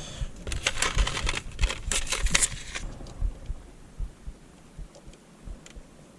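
Hands handling new automotive fuses and their plastic packaging: a dense run of crackling and clicks for about three seconds, then a few faint, scattered clicks.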